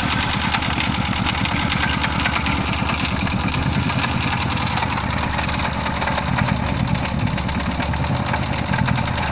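VAZ-2101 overhead-cam four-cylinder engine idling steadily, with a rhythmic knock from the camshaft.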